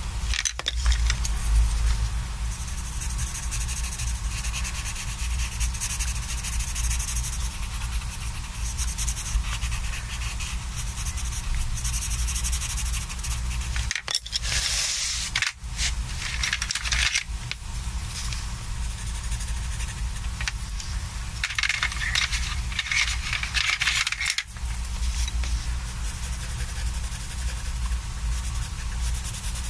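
Prismacolor colored pencil scratching on sketchbook paper in short back-and-forth shading strokes. About halfway through, wooden pencils click and rattle against each other as one is picked out of a handful, then the scratchy shading resumes.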